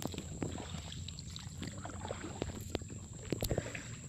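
Handling noise on a phone's microphone: scattered small knocks and rustles over a low steady rumble, with a faint steady high whine throughout.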